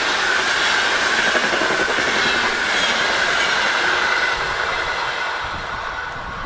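Passenger coaches of an electric-hauled express train running past at speed: wheels rumbling and clattering on the rails with a steady high whine. It fades from about four seconds in as the train draws away.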